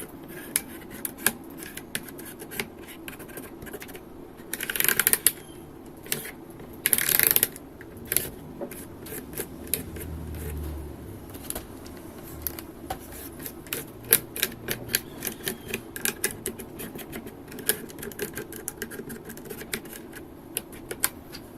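Alcohol-dampened cotton swab scrubbing the small gaps between the switches of a Keychron K8 Pro mechanical keyboard with its keycaps off: a stream of light, irregular clicks and scratches, with two brief louder hissing rubs about five and seven seconds in.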